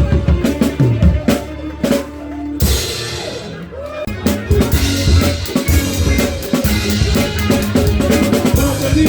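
Live soul band playing, with the drum kit close and prominent: kick, snare and rimshot hits over bass and other instruments. The playing thins out briefly about three seconds in, then the full band comes back in.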